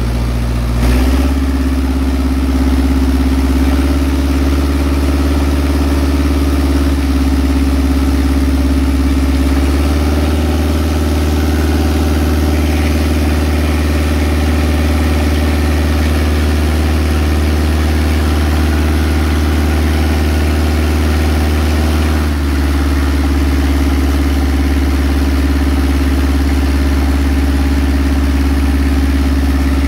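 Engine-driven deck water pump running steadily, with the hiss of its high-pressure jet washing oyster seed off the deck. The engine note shifts slightly about ten seconds in and again a little past twenty seconds.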